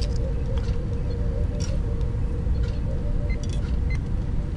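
A steady low rumble with a faint steady hum, and over it a few light clicks of a spring-loaded wire stripper biting into and pulling insulation off a thin wire.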